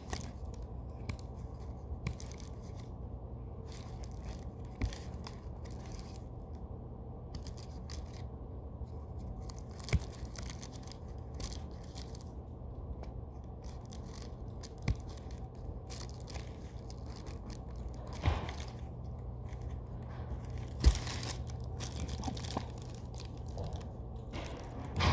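A squishy being worked by hand: material rustling and scraping in short, irregular strokes over a steady low hum, with a few sharp taps, the loudest about 21 seconds in.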